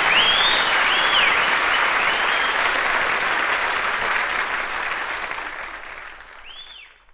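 Live concert audience applauding after a song, with a few high whistles from the crowd. The applause fades out steadily over the last few seconds.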